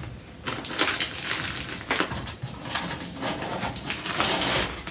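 Dried chamomile flowers rustling and crackling as they are spooned into a container, with many small dry ticks and a louder rustle near the end.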